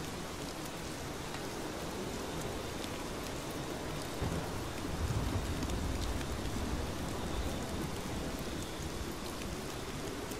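Steady heavy rain falling, an even hiss with scattered drop ticks. About four seconds in, a low rumble of thunder swells and fades again.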